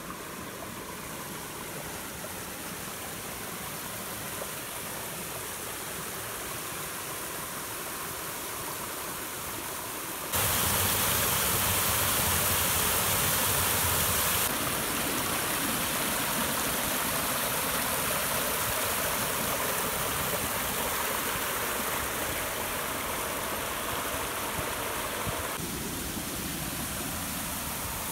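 Mountain creek water rushing and splashing over rocks, a steady hiss that jumps abruptly to a louder rush about ten seconds in for a few seconds, then settles back somewhat.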